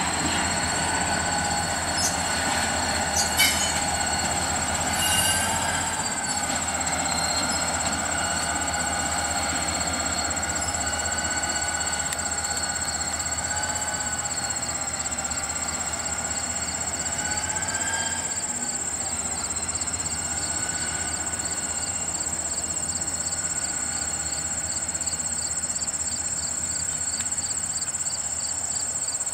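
SD40-2 diesel locomotive moving slowly with a couple of cars: a low engine rumble under a squealing wheel tone that wavers up and down in pitch, with a couple of clicks in the first few seconds. The squeal and rumble ease off about two-thirds of the way through, under a steady high cricket trill.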